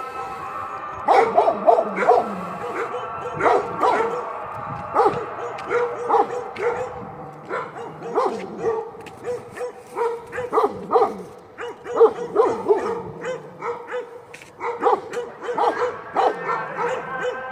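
Kangal shepherd dog barking over and over in short calls, one to two a second, with brief pauses.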